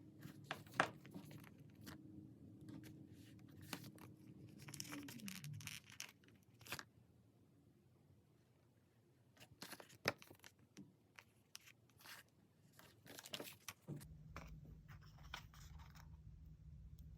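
Paper stickers being peeled and torn, with light taps and rustles of paper being handled. A faint low hum sits underneath; it dies away about a third of the way in and comes back near the end.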